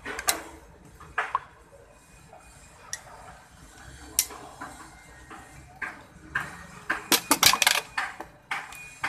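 Handling noise: scattered light clicks and knocks, with a quick run of several clacks about seven seconds in.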